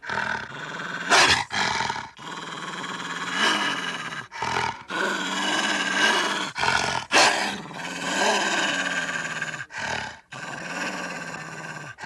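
Wolf growling and snarling: a nearly continuous growl broken by short pauses, with two louder snarls about a second in and again about seven seconds in.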